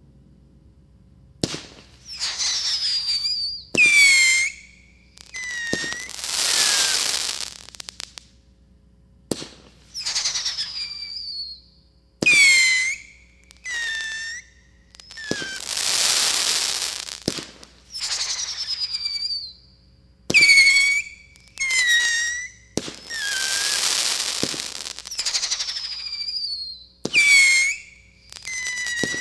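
Firework cake (200-gram aerial repeater) firing about a dozen shots, one every second or two. Each launch is a sharp pop followed by a whistle that falls in pitch, and several shots trail off into stretches of crackling.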